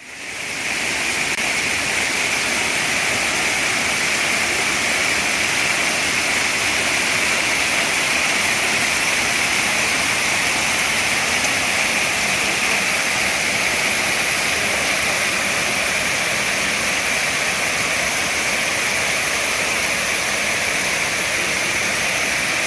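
Shiraito Falls, a broad curtain of thin streams of spring water spilling over a rock face into a pool, rushing steadily. The sound fades in over about the first second.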